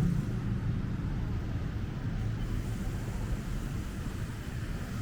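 Steady low rumble of busy city road traffic, a little louder at the very start and then even.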